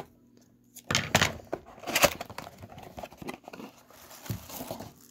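A small cardboard box being opened by hand: its seal torn with a sharp rip about a second in and another at about two seconds, then smaller crackles and scrapes as the cardboard flaps are pulled open.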